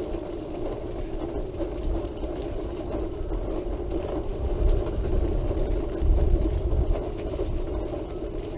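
Electric wheelchair's drive motors humming steadily as it rolls along a path, with a low rumble from the wheels that grows louder about six seconds in.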